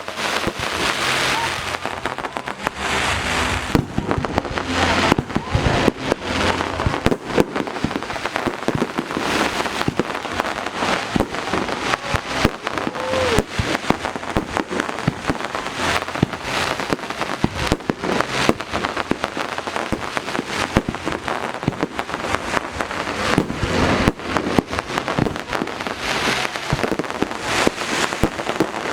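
Fireworks display at close range: a dense, continuous run of shell bursts and crackling, bang after bang with no pause.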